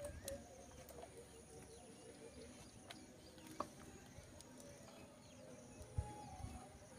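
Faint animal calls in the background: a quick series of short, evenly spaced notes, about five a second, in the first two seconds, with a few soft knocks and a low thump about six seconds in.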